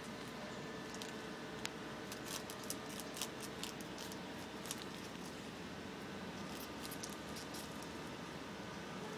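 Squirrel gnawing through a dry palm frond stalk: irregular crisp clicks and crunches of its teeth on the fibre, in clusters with short pauses.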